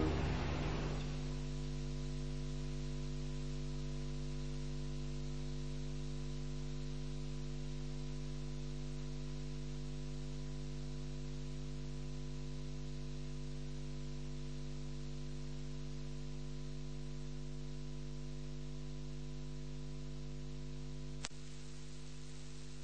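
Steady electrical mains hum, a low buzz made of several steady tones with faint hiss, as music dies away in the first second. A faint click near the end.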